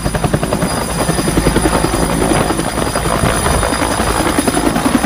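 Bell UH-1 Huey military helicopter flying low just above the ground, its two-bladed main rotor beating in a fast, even rhythm over the engine noise.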